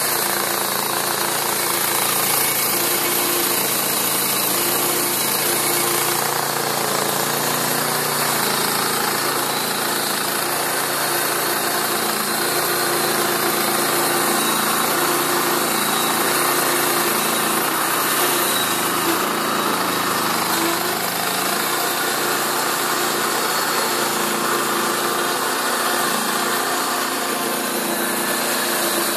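Portable bandsaw mill's small gasoline engine running steadily at speed while its band blade cuts through a hardwood cant.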